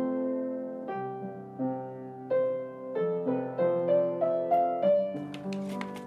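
Background piano music: a slow, gentle melody of single notes, each struck and left to fade.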